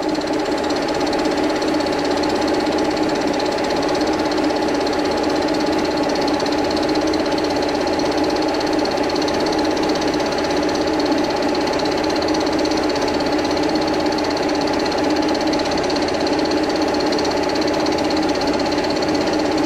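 Vertical milling machine running steadily with a fly cutter taking a light skim cut across a part held in a vise: a steady motor and spindle hum.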